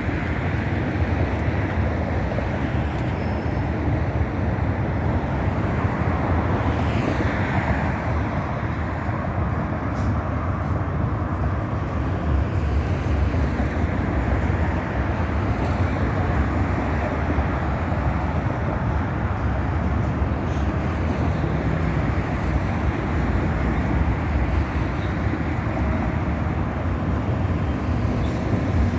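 Steady street traffic noise: a continuous low rumble of passing cars.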